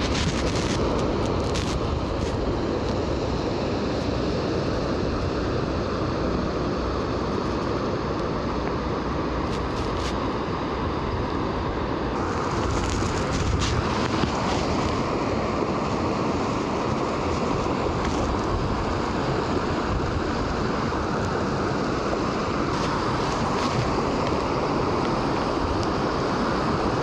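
Fast river water rushing through a riffle and rapids, a steady loud wash, with wind buffeting the microphone.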